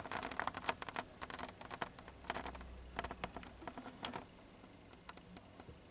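Handling noise: a quick patter of faint clicks and crackles that dies away about four seconds in.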